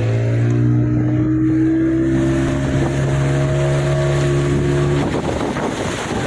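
Motorboat engine running steadily close by, its even drone stopping about five seconds in, with wind noise on the microphone.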